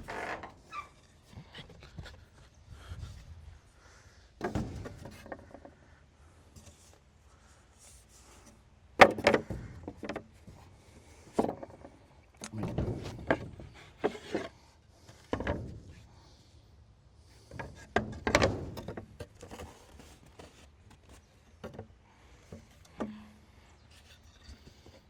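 Irregular wooden knocks and thuds, a dozen or so spread out, of boards and particle board being handled and set in place on a shed's floor framing. The loudest come about nine seconds in and again a little after eighteen seconds.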